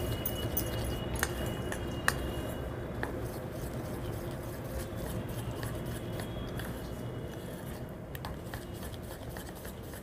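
A spoon stirring gram-flour (besan) batter in a steel bowl: soft, wet mixing with a few sharp clicks of the spoon against the bowl in the first three seconds, over a steady low hum.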